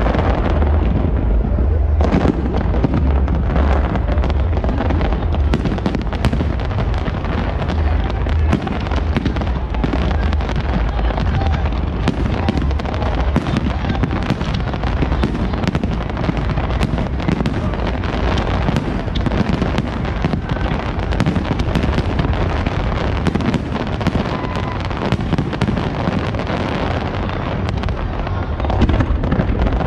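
A fireworks display at full barrage: many aerial shells bursting and crackling at once, rapid sharp bangs overlapping into a continuous din over a deep low rumble.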